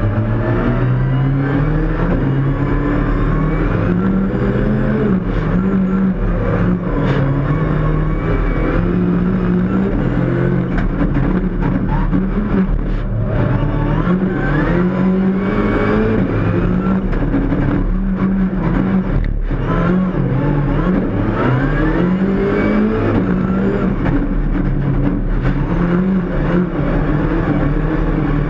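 Ford Fiesta ST rally car's engine, heard from inside the cabin, accelerating hard: its note climbs in pitch and drops back again and again, with a few sharp clicks along the way.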